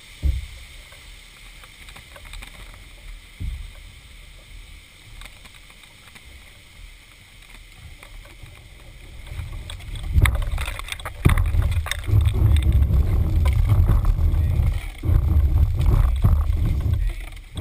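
Canoe moving through shallow floodwater, heard through a camera mounted on its bow: a few sharp knocks against the hull, then from about ten seconds in a loud, low rumble with knocks as the hull runs over the submerged pavement where the water gets shallow.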